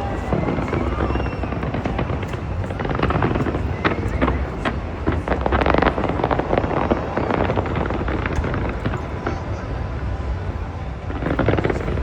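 Fireworks going off in a dense barrage: many sharp bangs and crackles over a steady low rumble, with show music playing underneath.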